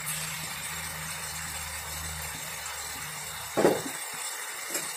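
A low steady hum, then about three and a half seconds in a single sharp glass clink as the oyster sauce bottle is set down on the counter. The hum stops just after, and a smaller click follows near the end.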